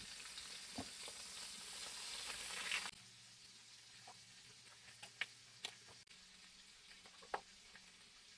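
Chicken breasts and diced onion sizzling in a frying pan while a slotted spatula stirs the onion. About three seconds in, the sizzle drops suddenly to a much quieter hiss, with a few light clicks.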